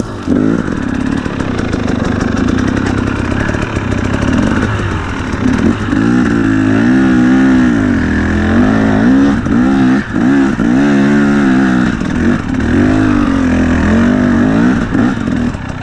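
A 2017 KTM 250 EXC's two-stroke engine riding under load, its note fairly steady for the first few seconds, then rising and falling again and again as the throttle is worked, with a few brief drops.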